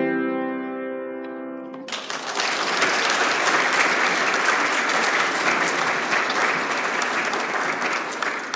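A final chord on a grand piano rings out and dies away, then about two seconds in the audience breaks into steady applause that lasts to the end.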